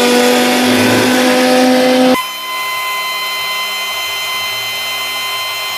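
A high-performance commercial blender in its sound-enclosure cover, running an automatic 30-second timed program. The motor gives a steady whine; about two seconds in it changes abruptly to a slightly quieter, higher whine.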